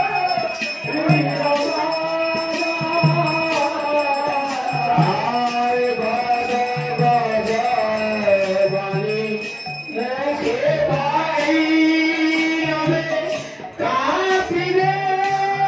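Devotional singing: a voice holding long, sliding notes over a drum beating about once a second and sharp cymbal strikes, with a brief pause in the singing about ten seconds in.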